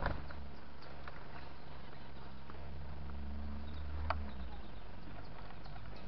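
Small birds pecking at cornmeal on a wooden feeding tray: scattered light taps and ticks, with a sharper click about four seconds in. Under it runs a low steady hum that stops a little after that click.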